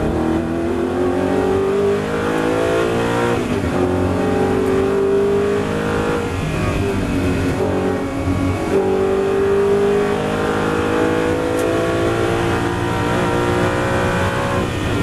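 Audi R8 race car engine heard from the cockpit at full throttle. The pitch climbs steadily and falls back at gear changes about three and eight seconds in, under a steady rush of wind and tyre noise.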